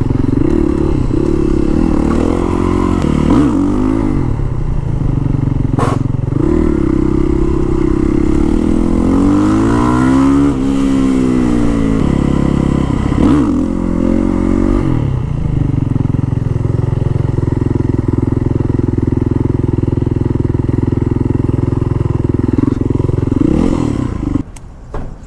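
Yamaha WR450F supermoto's single-cylinder four-stroke engine under way, revving up and easing off several times as it accelerates and shifts. The engine sound cuts off near the end.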